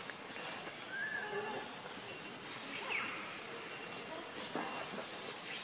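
Steady high-pitched insect drone, with a few short chirps scattered through it, one falling in pitch.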